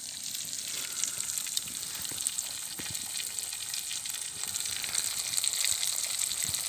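Pieces of fish frying in hot oil in a pan over a campfire: a steady sizzle with small pops scattered through it.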